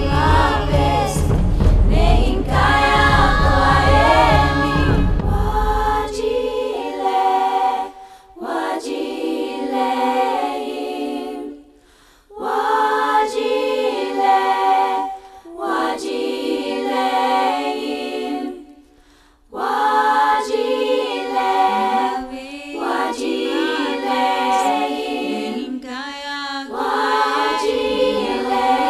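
A choir sings in long held phrases separated by short pauses. A deep low part underneath drops out about six seconds in, leaving the voices unaccompanied.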